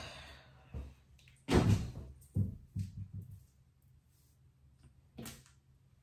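A towel rubbing through hair, ending within the first half second, then a series of knocks and thumps from things being handled: the loudest about a second and a half in with a short ring, a few quicker ones just after, and one more near the end.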